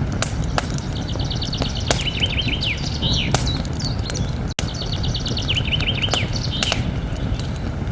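Campfire crackling with scattered sharp pops over a steady low rumble. A songbird sings the same short phrase twice, about a second in and again near six seconds: a quick trill followed by a few falling notes. There is a split-second gap in the sound about halfway through.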